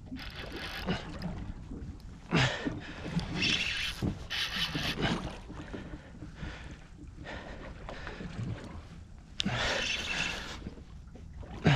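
Water washing against the hull of a small boat at sea, with wind, coming in surges of hissing wash over a low rumble. Two sharp knocks stand out, the loudest near the end.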